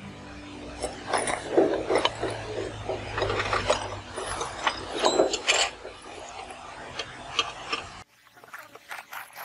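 Clinks, knocks and scraping of metal tools and engine parts being handled on a bare diesel engine block, many sharp clicks in quick succession over a low hum. The sound cuts off abruptly about eight seconds in.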